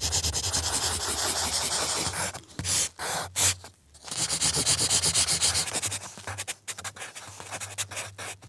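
Pencil scratching and rubbing across paper in quick sketching strokes. It comes in runs: a long one for the first two seconds, a few short strokes, another long run in the middle, then choppier strokes near the end.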